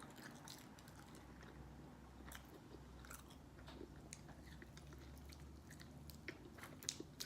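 Faint close-up chewing and biting of food, with scattered small mouth clicks and smacks.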